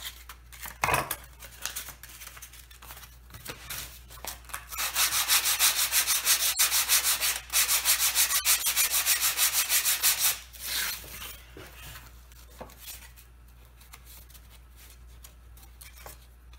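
Hand sanding with a sanding block on wood veneer: about six seconds of quick, even back-and-forth strokes, starting a few seconds in. Light handling knocks and rustles come before and after.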